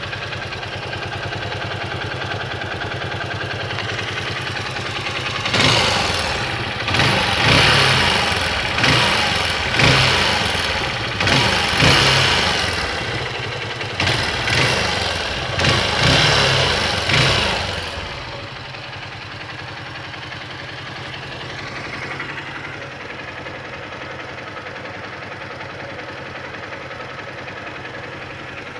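Honda XR150L's single-cylinder four-stroke engine idling, then revved in a quick series of about ten throttle blips, each rising and dropping back, before settling to a steady idle. The engine is run to let an engine noise be heard.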